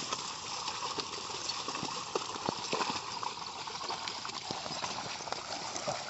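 Pair of bullocks' hooves splashing and squelching through flooded paddy mud at a walk as they drag a wooden levelling plank, with irregular small splashes over a steady wash of water and mud.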